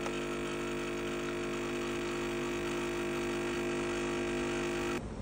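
Capsule espresso machine's pump buzzing steadily while coffee pours into the cup, cutting off suddenly near the end.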